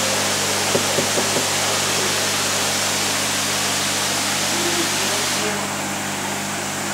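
Steady rushing hiss of running water and aeration in a koi holding tank, over a low, even pump hum. A few small clicks sound about a second in, and the hiss loses some of its brightness near the end.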